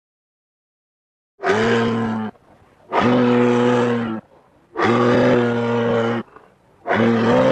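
Kodiak grizzly bear giving four low, steady-pitched vocal calls in a row, each lasting about a second, with short pauses between. The calls begin after about a second and a half of silence.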